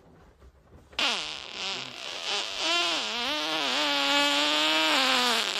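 A long, drawn-out fart that starts suddenly about a second in, its pitch falling at first and then wavering and holding, with a lot of airy hiss.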